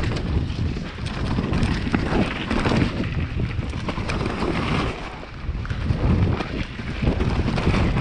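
Wind buffeting the microphone as a mountain bike rides fast down a dirt trail, mixed with tyre noise on the dirt and small knocks and rattles from the bike.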